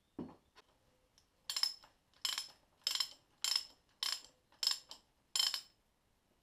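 Socket ratchet clicking in seven quick strokes about two-thirds of a second apart as it undoes a nut on the crankcase through studs. A few soft knocks come before it in the first second.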